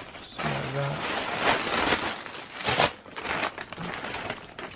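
Cardboard shipping box being opened by hand: irregular tearing, crackling and rustling of the packing tape and cardboard, then crinkling of the clear plastic bag holding a flannel shirt inside.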